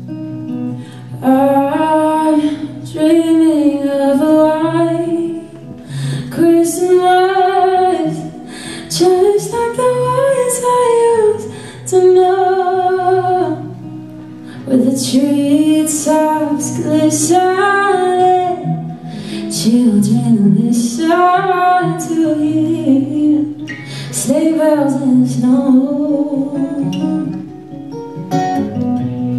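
A woman singing a slow ballad while playing an acoustic guitar, her voice in long held phrases with short pauses between them.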